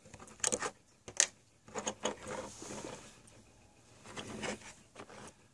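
Sharp clicks and rubbing scrapes from small parts being handled while a cheap quartz watch movement is taken apart, with two clicks in the first second and a couple of scraping passes after.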